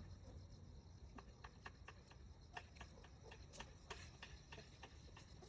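Near silence with faint, irregular small clicks and ticks, a couple each second.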